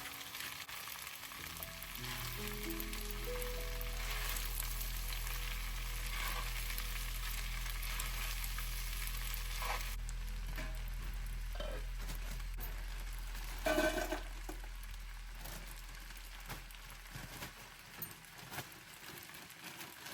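Spaghetti noodles sizzling as they fry in butter in a pan, a steady hiss that fades out past the middle, under soft background music with a long held bass note. A brief louder sound stands out shortly after the sizzling fades.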